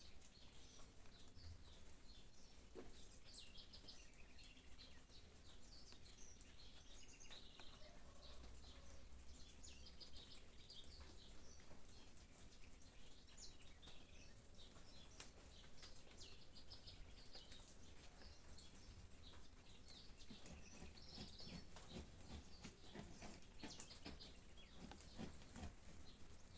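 Small birds chirping, with a very high-pitched twittering burst every two to three seconds and other scattered chirps, over faint rain patter and drips.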